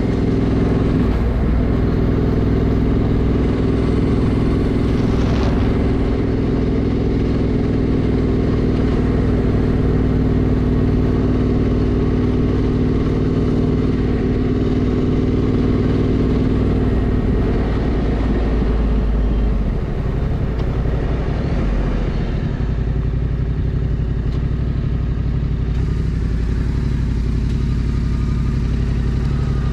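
Yamaha Ténéré 700's parallel-twin engine running steadily at speed, with wind and road noise. About twenty seconds in, the engine note drops lower and stays there.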